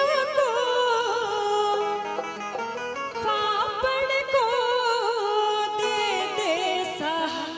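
A woman singing a devotional bhajan into a microphone: long, ornamented notes that waver and slide in pitch, over a steady instrumental accompaniment.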